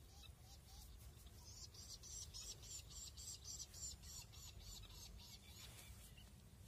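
Faint, rapid high-pitched chirping, about five evenly spaced chirps a second, rising in the middle and fading near the end, over a faint low outdoor rumble.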